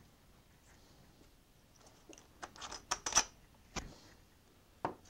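Light handling sounds on a workbench: a cloth rag being rubbed and a small glass paint bottle handled. A cluster of short clicks and scuffs comes about two seconds in, followed by two sharper single clicks.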